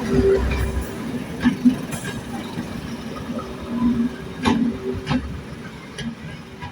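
A train moving on a heritage railway line, with a low rumble that drops away about a second in, then several sharp clicks and knocks from the wheels and rolling stock at uneven spacing.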